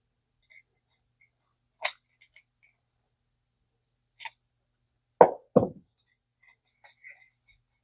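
Small metal parts of a vintage Zebco spincast reel being handled: a sharp click about two seconds in, another about four seconds in, then two knocks in quick succession, with faint small ticks between.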